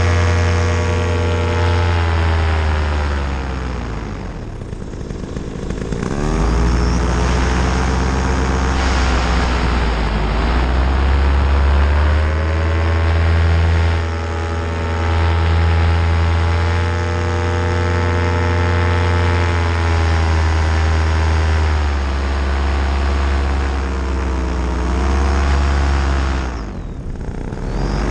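Paramotor engine and propeller running, the pitch dropping as the throttle is eased off and climbing back several times. There is a deep dip about four seconds in and another near the end, with smaller ones in between.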